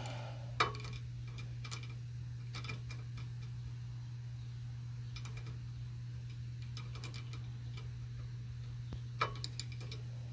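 Ratcheting wrench clicking in short runs of quick ticks as a bolt is turned and tightened, with pauses between strokes.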